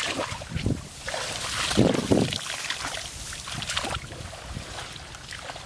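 Rustling of grass and rice plants with irregular splashing and sloshing of shallow water as someone reaches in by hand; louder about two seconds in.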